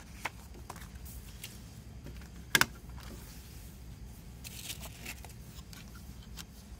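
Hands handling a clear plastic CD jewel case and its paper booklet and obi strip: light paper rustles and small plastic ticks, with one sharper click about two and a half seconds in.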